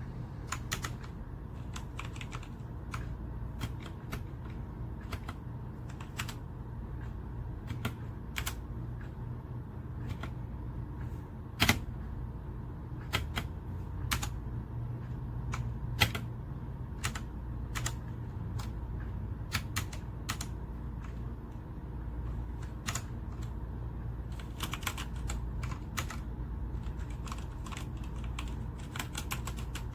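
Typing on a Redragon K617 Fizz 60% hot-swap mechanical keyboard, a sound the owner calls creamy: irregular keystrokes, one or two a second, quickening into faster runs near the end, with one louder clack about a third of the way through. A steady low hum lies underneath.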